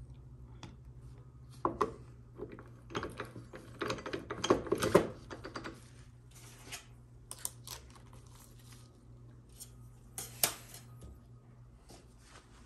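Steel parts of a GM TH400 transmission gear train clinking and knocking as a drum is slid down the shaft and seated on the planet assembly. Clinks come in a busy run in the first half, and one sharp knock comes near the end.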